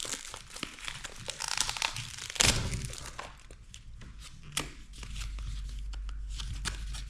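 Packaging being handled: crinkling and rustling with short crackles, and a loud tearing rip about two and a half seconds in.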